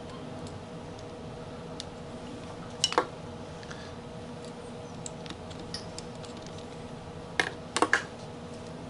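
Small clicks and clinks of tools and metal parts being worked while a throttle body is dismantled, with a pair of sharp knocks about three seconds in and a quick cluster of three near the end.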